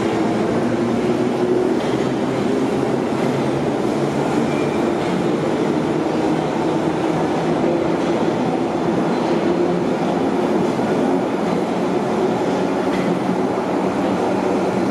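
London Underground 1972 Stock tube train pulling out of the platform and running away into the tunnel: a steady rumble of wheels on rail with a low hum running under it.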